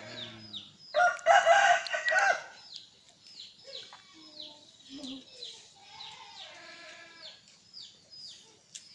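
A rooster crows loudly once, about a second in, for a little over a second. Short high falling peeps repeat several times a second throughout, with a fainter call near the end.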